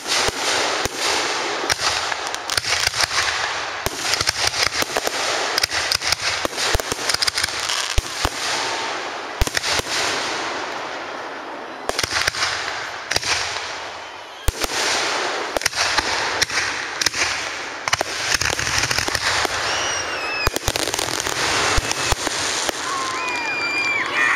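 Fireworks finale: many aerial shells bursting in rapid succession, a dense run of bangs and crackling. Near the end, whistles and cheering from the onlookers begin.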